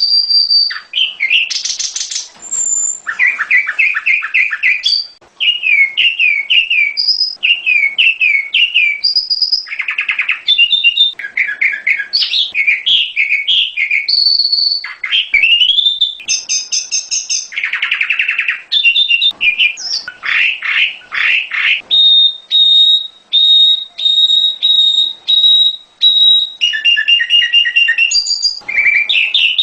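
Prenjak gunung (a prinia) singing loudly in a lure recording: fast, varied trilled phrases. A high steady whistle opens it, and a run of short, even, repeated notes follows about two-thirds of the way in.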